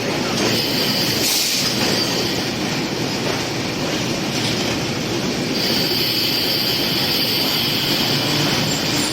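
Passenger train running on the rails with a steady rumble, joined about five and a half seconds in by a steady high-pitched wheel squeal.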